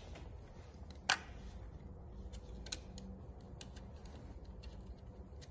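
Faint small clicks and taps of a hex key and small bolts being worked at a 3D printer's print head while the BL Touch probe is fitted, one sharper click about a second in, over a low steady hum.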